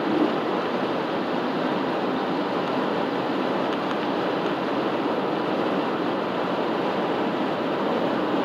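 Steady rush of road and wind noise from a car driving along, heard from inside the car.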